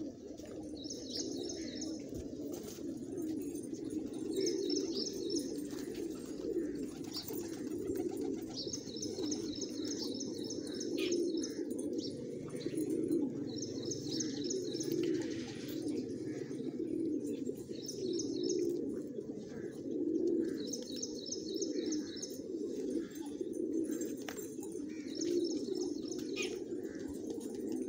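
A flock of fancy pigeons cooing together, many overlapping coos rising and falling without a break. Short, high, rapid chirping trills cut in every few seconds.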